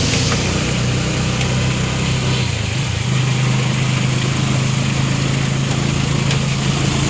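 A passenger vehicle's engine running steadily, heard from inside the cabin. A low drone shifts pitch slightly about two and a half seconds in, over a steady hiss of road and wind noise.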